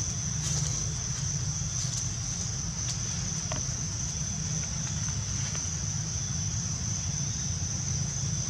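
Steady high-pitched drone of insects, with a steady low rumble underneath and a few faint brief sounds.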